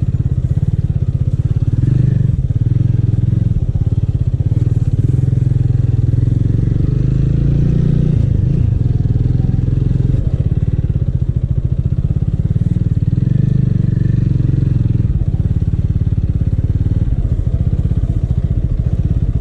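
Motorcycle engine running at riding speed, its note rising and falling with the throttle; the pitch shifts about eight seconds in and drops back a few seconds later.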